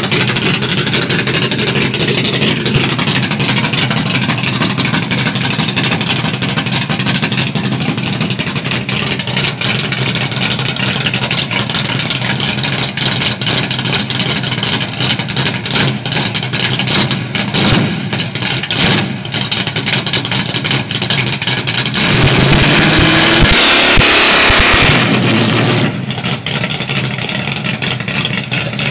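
Pickup truck's 496 big-block V8 running at low speed with a steady rumble. About three quarters of the way through, a loud rush of noise lasts about three seconds.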